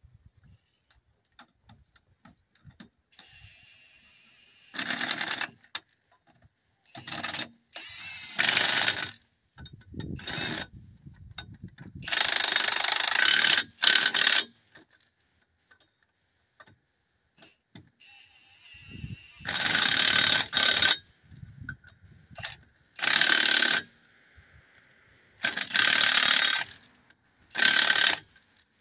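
Cordless impact wrench driving lug nuts onto a steel wheel, hammering in about nine bursts of half a second to two and a half seconds each, with softer whirring between some of them as the nuts run down and snug tight.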